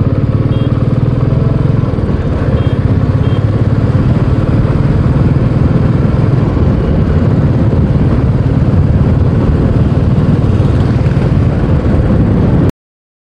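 Royal Enfield Bullet 350's single-cylinder engine running steadily as the motorcycle rides along, a fast even stream of low exhaust pulses. The sound cuts off suddenly near the end.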